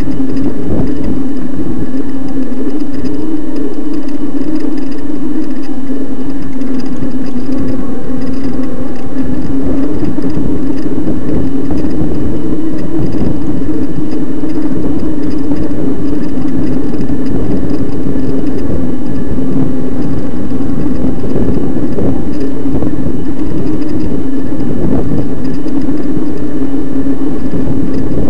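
Electric mountain bike's motor running at about a quarter of its power with a loud, steady whine, over a rough, uneven low rumble from riding the dirt trail.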